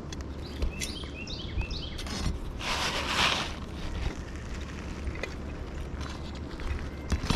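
Asphalt shingle being worked loose on a roof: a brief tearing rasp about three seconds in, with light taps and clicks. A few bird chirps about a second in over a steady low outdoor rumble.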